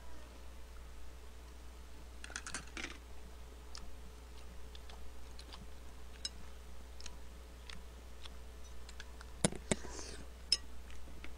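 Scattered light clicks and clinks of a metal spoon against a glass bowl as rice is stirred and scooped, with a quick cluster about two seconds in and the sharpest taps near the end.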